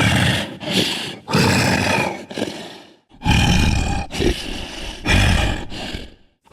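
Homemade Bigfoot sound effect: a string of loud roars, one after another, each about half a second to a second long with short breaks between them.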